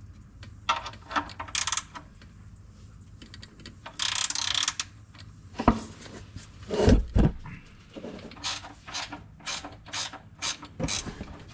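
Hand socket ratchet clicking in short strokes as bolts are worked loose, with a couple of knocks and a brief rush of noise midway.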